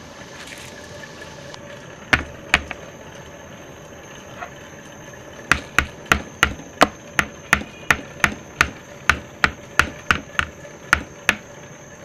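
A utensil knocking sharply against a cooking pot: two knocks about two seconds in, then an even run of about three knocks a second for some six seconds, over a steady background hum.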